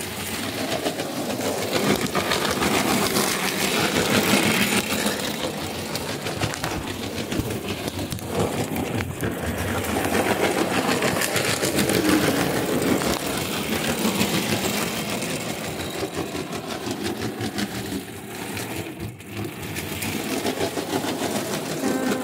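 Model steam locomotive running on its track: the small electric motor's hum with a fast, even rattle of wheels on rail, growing louder and softer in turn.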